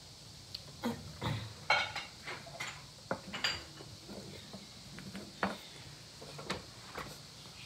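Scattered light clicks, knocks and clinks of small ceramic pieces being handled and set down, about a dozen separate knocks.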